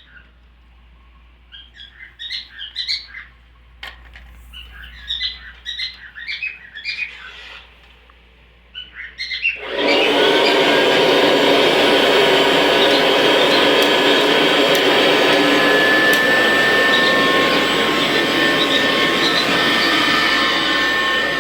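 Birds chirping, then about ten seconds in a Kirby Classic vacuum cleaner's motor is switched on and runs steadily with a high whine.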